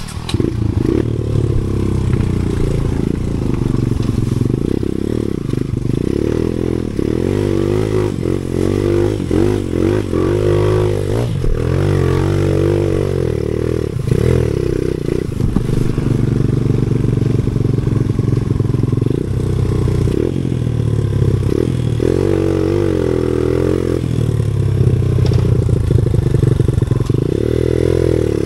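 Enduro dirt bike engine running under way, revving up and down again and again as it is ridden, heard muffled.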